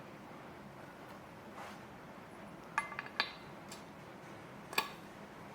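Sharp clicks and clinks as chair caster wheels are handled and their stems pushed into the base: a faint one, a quick group of three about three seconds in, then one more near the end.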